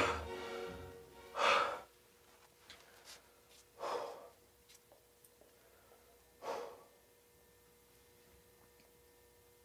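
A man breathing out heavily three times, slow deliberate breaths to calm himself, about two and a half seconds apart. Background music fades out near the start.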